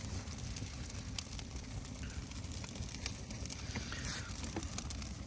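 Small campfire of birch bark and thin twigs burning, with faint scattered crackles and pops over a low steady rumble.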